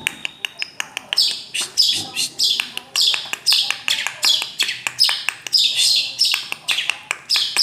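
Long-tailed shrike (pentet) singing: a quick run of clicking notes, then a string of high, falling whistled notes repeated about twice a second.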